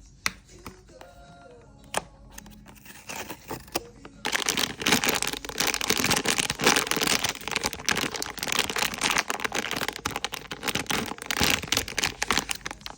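Blind-box packaging wrapper crinkling and rustling as it is handled and torn open. A couple of sharp clicks come in the first two seconds, then dense crinkling starts about four seconds in and runs until near the end.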